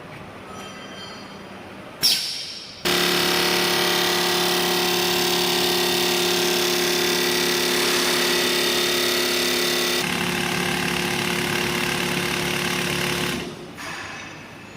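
Magnesium oxide powder filling machine running: a loud, steady mechanical hum with a strong pitched drone. It starts abruptly about three seconds in, just after a short clunk, and dies away about a second before the end.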